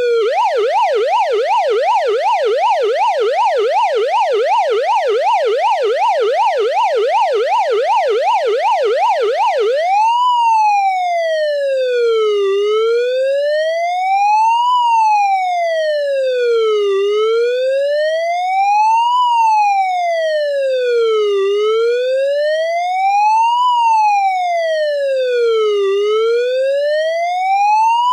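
Police car siren in a fast yelp, its pitch sweeping up and down about three times a second. About ten seconds in it switches to the slow wail, rising and falling between low and high pitch roughly every four and a half seconds.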